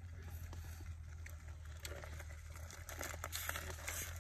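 Scattered faint clicks and rustles of fingers handling a live dung beetle over a wooden mortar, over a steady low hum.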